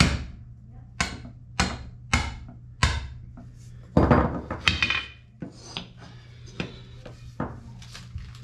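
A sledgehammer strikes steel about a dozen times at an uneven pace, with the heaviest, ringing blow about four seconds in. It is hammering a punch in a joint of a removed pickup's steering center link to knock the old idler-arm stud loose.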